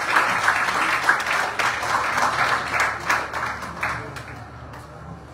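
Audience applause, dense clapping that thins out and dies away about four seconds in.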